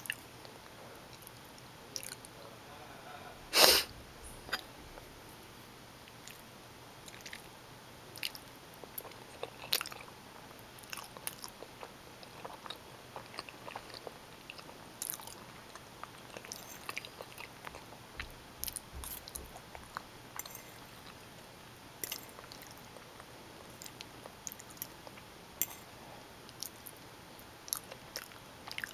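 Close-miked mouth chewing bowtie pasta in tomato sauce with spicy Italian sausage: soft wet clicks and smacks scattered all through. One brief, much louder noise comes about three and a half seconds in.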